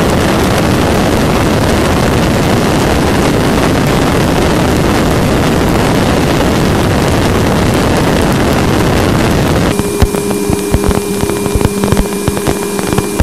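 Voyager 2 Plasma Wave Subsystem data played back as sound: a loud, dense hiss. About ten seconds in it gives way abruptly to several steady hums and tones, broken by scattered sharp clicks.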